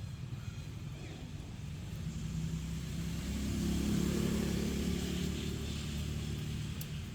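A motor vehicle passing: its engine hum grows louder to about four seconds in, then fades, over a steady low rumble.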